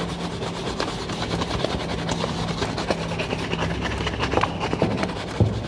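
Two shoe brushes rubbed briskly back and forth over polished leather shoes, a continuous fast scratchy brushing of many short strokes, buffing the shoes to a shine.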